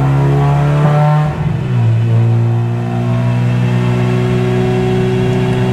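Honda K20A2 four-cylinder engine running at steady revs on a chassis dyno, heard from inside the stripped, caged cabin. Its pitch breaks and dips briefly about a second and a half in, then holds steady at a slightly lower pitch.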